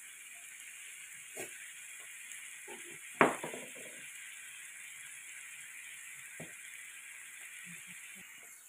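Cauliflower and shrimp stir-frying in hot oil in a pan: a steady sizzle, with three knocks of the spatula against the pan, the loudest about three seconds in. The sizzle falls away near the end.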